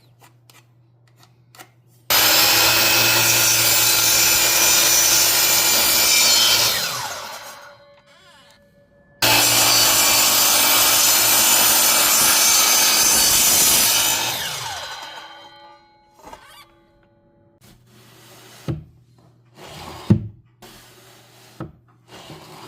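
An electric power tool cutting wood, run twice for about five seconds each. Each run starts abruptly and winds down with a falling pitch after switch-off, followed by a few light knocks of wood being handled.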